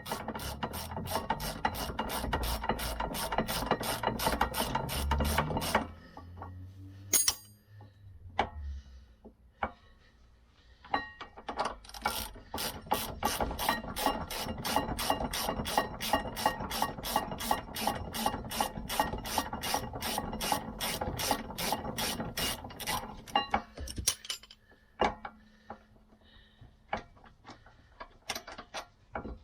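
Socket wrench ratchet clicking steadily, about four clicks a second, as the rear brake caliper carrier bolts are wound out. The clicking stops about six seconds in, a few scattered clicks and knocks follow, and a second long run of ratcheting goes from about twelve seconds to near the end.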